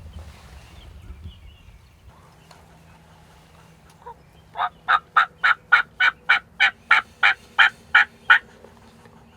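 A long run of about fifteen turkey yelps, evenly spaced at roughly four a second, starting about halfway through and stopping abruptly.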